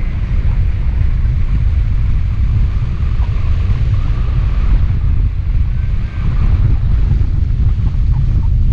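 Wind buffeting the microphone of a camera on a hang glider in flight: a loud, steady low rumble of rushing air.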